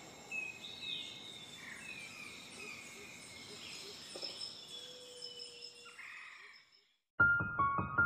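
Faint chirping nature ambience, short bird-like chirps over a steady high insect-like trill. About seven seconds in it cuts out, and loud piano/keyboard music starts abruptly.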